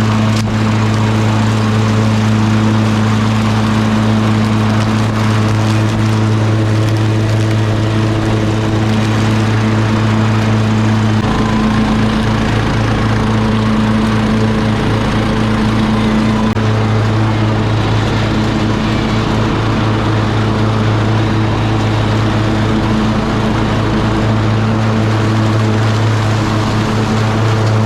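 Cub Cadet riding lawn mower running steadily as it mows and bags leaves. A little past a third of the way in, its steady hum turns uneven and wavering for about five seconds, then settles back to a steady run.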